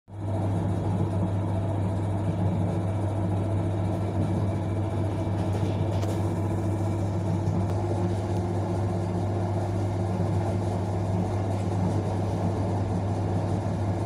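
Steady low hum and rumble inside the passenger car of an ER9M electric multiple-unit train, unchanging throughout.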